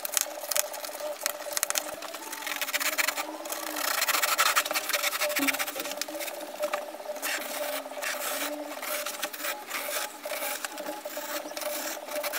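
A blade cutting through thick polyurethane foam padding, a steady rasping made of many quick strokes.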